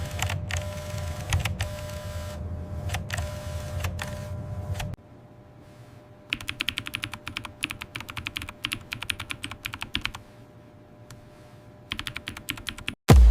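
Typing on a mechanical keyboard: a run of rapid key clacks in the second half, after a stretch of low steady hum with a few scattered clicks.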